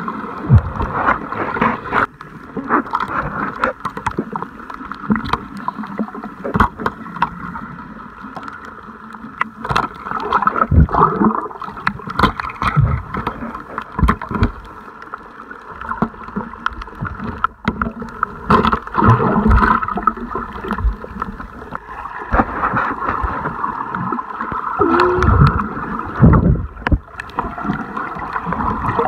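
Muffled water sloshing and gurgling around a camera in the water, with frequent irregular knocks and low thumps throughout.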